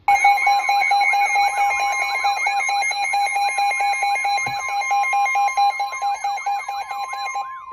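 Emergency Alert System attention signal: a harsh, steady two-tone alarm lasting about seven and a half seconds, with a warbling tone sweeping up and down about four times a second over it. Near the end the two tones cut off and a single tone carries on for about another second before stopping.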